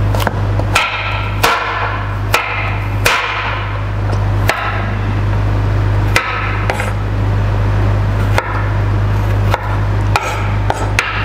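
Kitchen knife chopping fresh coconut flesh on a wooden cutting board: about a dozen sharp, irregular knocks of the blade striking the board, some with a short ring. A steady low hum runs underneath.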